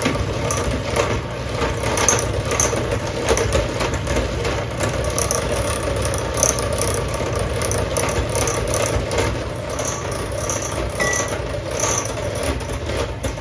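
Bosch electric hand mixer running steadily on low speed, its beaters churning a thick cream cheese mixture in a glass bowl with a constant hum and frequent clicking rattle.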